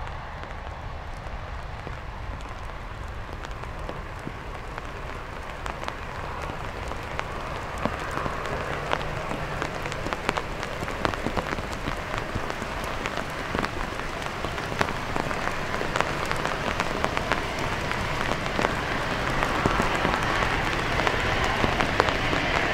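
Rain pattering on an umbrella over the microphone in sharp, separate taps, over the rushing jet noise of a departing Airbus A380's four engines, which grows louder through the second half.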